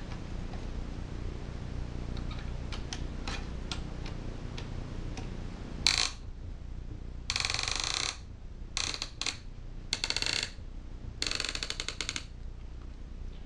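Piston ring compressor being ratcheted tight around a piston's rings. There are a few light clicks, then a sharp click about six seconds in, then several short runs of rapid ratchet clicking, over a steady low hum.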